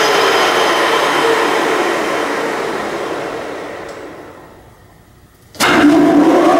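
Kingston HR2000 heavy-duty engine lathe running, its headstock gearing and 20-inch chuck winding down over a few seconds as the spindle is stopped. It starts up again abruptly near the end.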